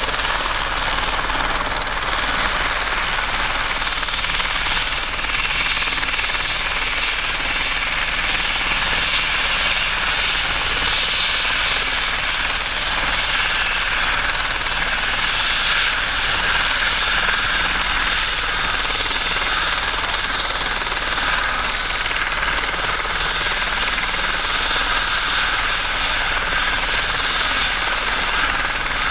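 Police helicopter's turbine engine spooling up on the ground. A high whine climbs in pitch over the first few seconds, then a second whine rises and settles into a steady tone past the middle, over a steady rush of turbine and rotor noise.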